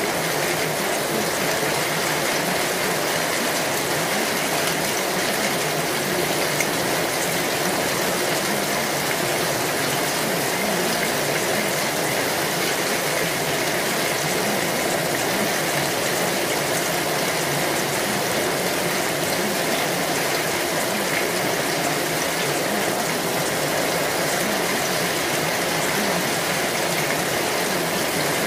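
A steady, even rushing noise like running water, holding the same level throughout, with no beat or melody.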